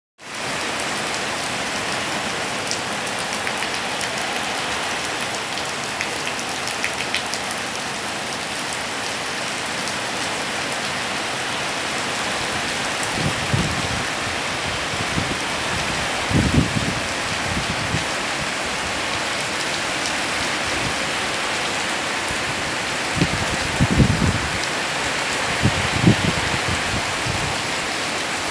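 Heavy rain falling steadily, splashing on paving and tiled roofs. A few short low thuds or rumbles come through about halfway through and again near the end.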